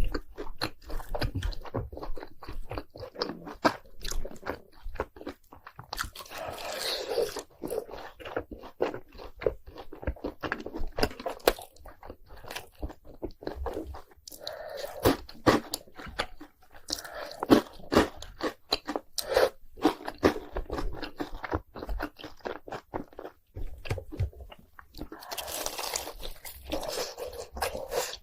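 Close-up crunchy biting and chewing of fried cheese balls coated in crushed Hot Cheetos: dense crackling crunches throughout, with a few softer, wetter stretches of chewing.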